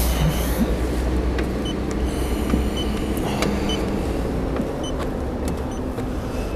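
Several short high beeps about a second apart from a paint thickness gauge, one for each reading taken on the car's body panels, with a few faint clicks. Behind them runs a steady low vehicle rumble.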